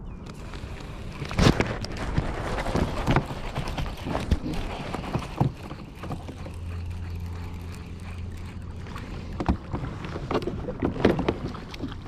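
Irregular sharp knocks, bumps and rustling from fishing gear being handled against a plastic kayak while a hooked bass is being played and brought alongside, with a low steady hum for a few seconds in the middle.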